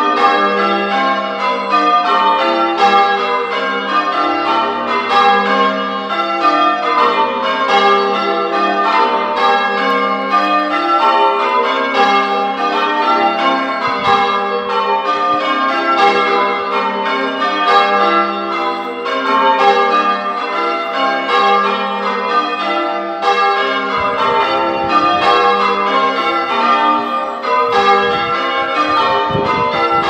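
Change ringing on a ring of eight church bells: the bells strike one after another in a steady, unbroken stream, each note ringing on under the next.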